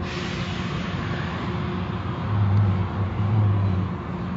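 Car wash equipment running: a steady hiss like spraying water over a low motor hum. A louder low hum swells up twice a little past the middle.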